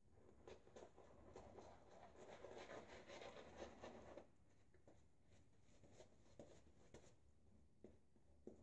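Schick Eversharp injector razor scraping through lathered stubble: a faint, dense crackle of whiskers being cut for the first few seconds, then a few separate short scrapes.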